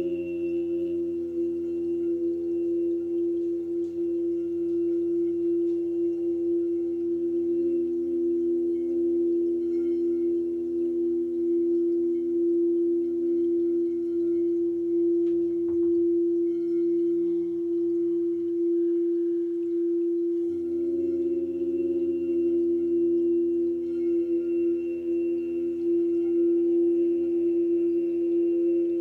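Meditative sound-healing drone: one steady held tone with a stack of overtones and lower layered tones beneath it. The lower layers drop out for a couple of seconds a little past the middle, then come back.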